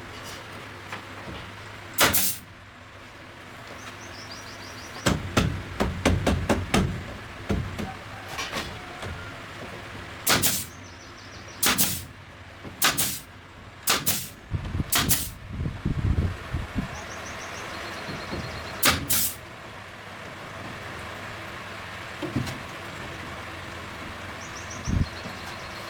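Irregular series of sharp knocks and strikes, some singly and some in quick clusters, over a steady background hum, with a few short high chirps now and then.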